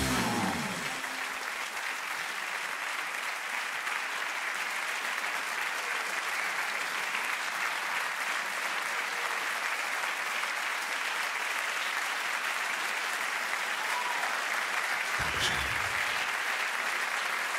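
Theatre audience applauding, a long steady round of clapping; the end of the intro music dies away in the first moment.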